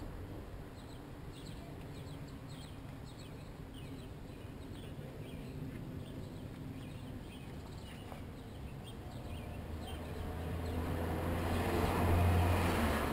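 Small birds chirping faintly in short calls throughout. Near the end a car drives past, its low engine and tyre noise rising to a peak and then fading.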